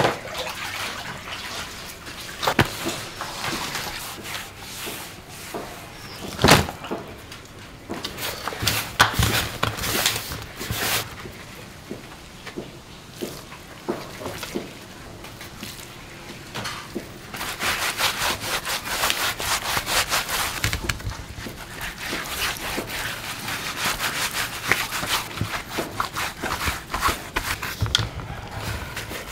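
Gloved hands rubbing seasoning into a split raw pig carcass: irregular rubbing and scraping on the meat, busier in the second half, with one sharp knock about six and a half seconds in.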